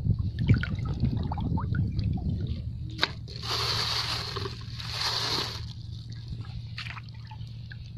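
Shallow seawater sloshing and trickling as a spider conch shell is handled and dropped into a bucket. Small clicks early on, a sharp knock about three seconds in, then two short bursts of noise around the middle.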